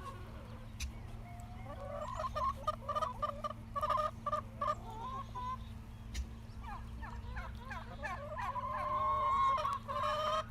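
A flock of chickens and turkeys calling over one another: many short clucks and squawks, with one longer, held call about two-thirds of the way through. A faint steady low hum runs underneath.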